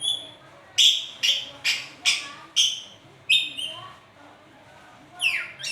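Pet lory (nuri parrot) calling: a string of loud, shrill, downward-sweeping calls, about seven in the first three and a half seconds, then a quick run of falling notes near the end.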